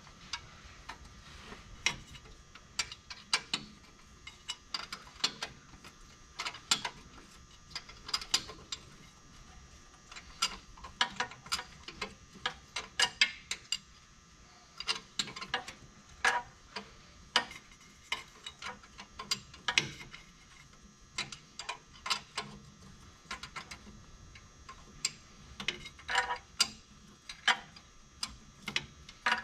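Ratcheting wrench clicking in irregular runs of short strokes as bolts are tightened, with brief pauses between runs.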